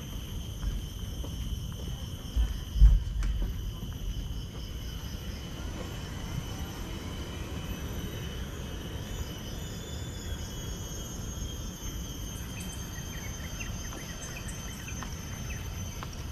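Insects chirring steadily in a high, pulsing drone over a low rumble. A heavy thump about three seconds in is the loudest moment.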